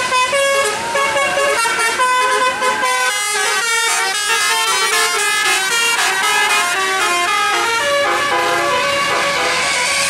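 A bus's multi-tone telolet horn playing a fast melody, its notes stepping quickly up and down.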